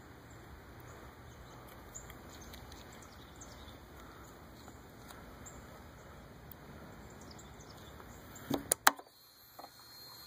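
Faint background rustle with small ticks, then near the end three or four sharp clicks as the motorcycle's tank-mounted ignition switch is turned on. The engine is not yet running.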